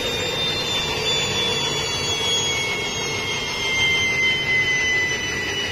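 Turbolekt 333 gas-turbine generator running: a steady rushing noise with two high whines that slowly fall in pitch, the turbine's speed dropping.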